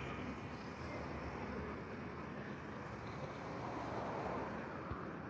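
Steady noise of a car driving along a road: engine and tyre rumble with some wind noise, and a single soft knock just before the end.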